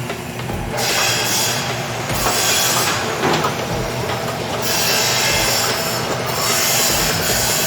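Rasping of a tool working metal in repeated stretches of a second or more with short gaps between, the kind of noise made when exhaust pipe is cut or dressed for fitting.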